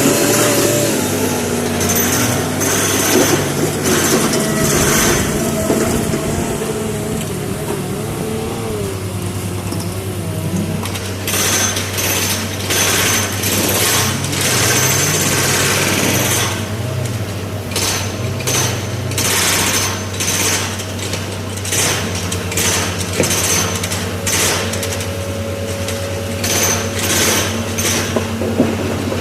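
SANY excavator's diesel engine running under load, its pitch rising and falling during the first several seconds. From about eleven seconds in, a run of sharp clattering knocks comes over the engine.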